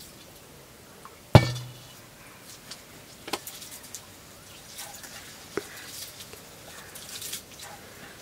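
Metal cooking pots and utensils being handled: one loud clank with a short ring about a second in, then a few lighter clinks and knocks.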